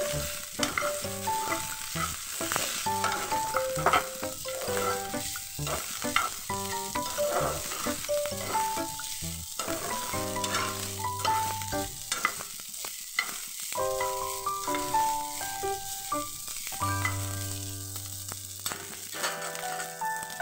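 A spatula scraping and stirring rice through a nonstick wok in irregular strokes, with the light sizzle of frying in oil. Soft background music notes sound underneath.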